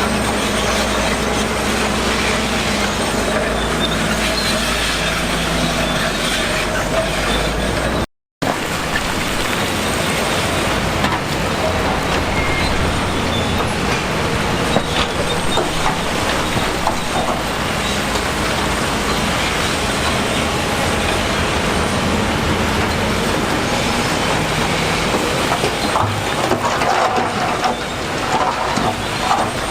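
Heavy diesel earthmoving machinery running, with a steady metallic clatter and squeal typical of a bulldozer's steel crawler tracks. The sound drops out for an instant about eight seconds in at a cut, then carries on with a lighter engine hum.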